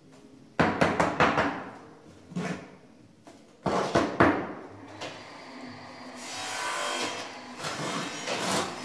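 A steel trowel working wet cement-based tile adhesive on a concrete floor. It knocks and slaps dollops down several times in the first half, then a notched trowel scrapes steadily as it combs ridges through the adhesive from about six seconds in.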